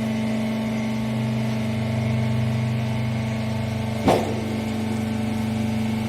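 Hydraulic rag baler's power unit running with a steady hum, with a single sharp clunk about four seconds in.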